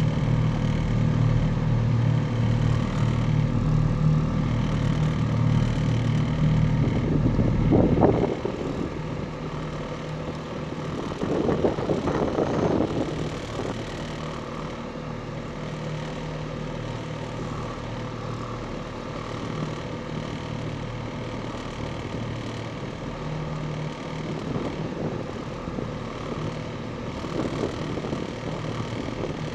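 A motorboat's engine running steadily; it is louder for the first eight seconds, then settles to a lower, quieter hum. Two brief rushes of noise come at about eight and twelve seconds in.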